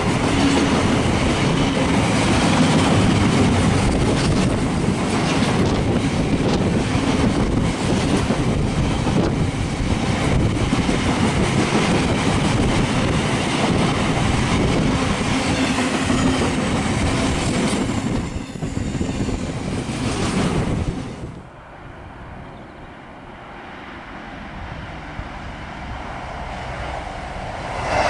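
A long freight train of empty flat wagons passing through at speed, its wheels clattering over the rail joints in a dense rattle. About 21 seconds in the sound drops off sharply, and a much quieter rumble slowly builds after it.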